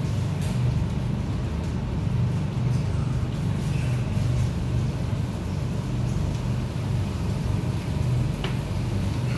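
Steady low mechanical hum with a slight pulsing to it, typical of ventilation machinery, with a brief faint high sound near the end.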